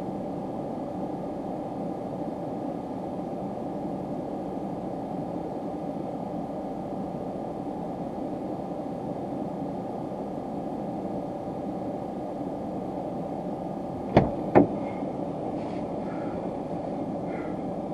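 A steady rumbling noise, with two sharp clicks about half a second apart near the end, followed by a few faint, short, higher-pitched sounds.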